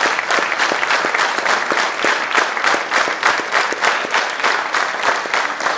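Theatre audience applauding, the clapping falling into a steady rhythm of about four claps a second, in unison.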